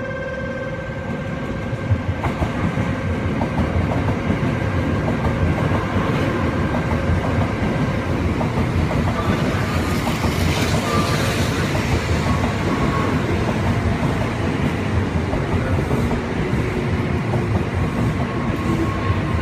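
A steady electronic departure signal tone rings for the first several seconds and then stops. About two seconds in, the rumble and wheel clatter of a Tokaido Shinkansen train on the rails rises and keeps going, with a brief higher wheel squeal.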